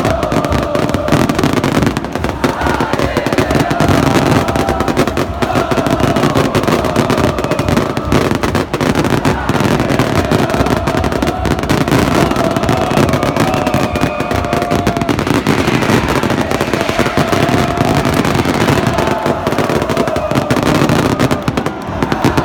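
A huge football crowd of supporters singing a chant together, with firecrackers and bangers crackling and popping through it.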